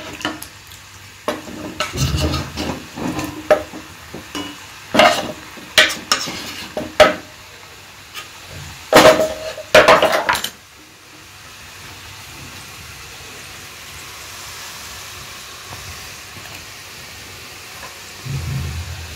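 Pieces of shakkarpara dough being pushed off a wooden board into a kadhai of hot oil, with sharp clicks and knocks of a knife against the board and pan. From about ten seconds in, a steady sizzle of the pieces deep-frying in the oil.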